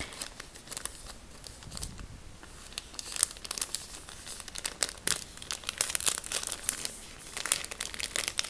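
Crinkly packaging of a face mask being handled and torn open close to the microphone: irregular crackling and crinkling, sparse at first and growing dense after about three seconds.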